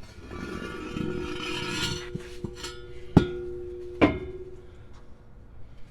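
Metal-on-metal work on steel: about two seconds of rasping scraping, then two sharp metal clanks about a second apart, the first the loudest, each leaving a ringing tone that fades out within a second.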